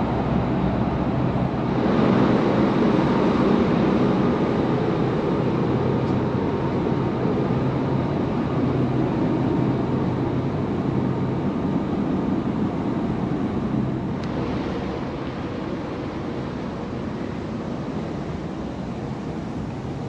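Steady rushing wind over an open-air rooftop deck high above the city, with a faint steady hum underneath; it swells about two seconds in and eases near the end.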